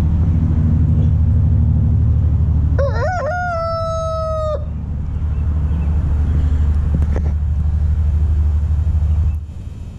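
Brahma rooster crowing once, about three seconds in: a wavering, rising start, then a long held note that cuts off sharply. A steady low drone runs underneath and stops shortly before the end.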